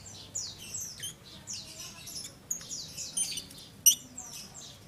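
Lovebird calling with a rapid series of short, shrill, high-pitched chirps, and a sharp click about four seconds in.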